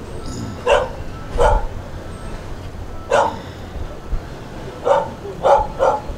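A dog barking: six short, separate barks spaced about a second apart, over steady background noise.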